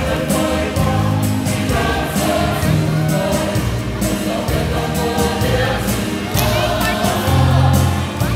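A group singing a Samoan song in chorus, with a steady sharp percussive beat under the voices.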